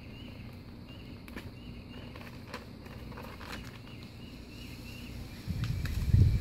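Soft rustles and light clicks as the vinyl decal's paper sheet is handled with a craft knife in hand, over a faint high chirping that comes and goes. About five and a half seconds in, a louder low rumble sets in for about a second.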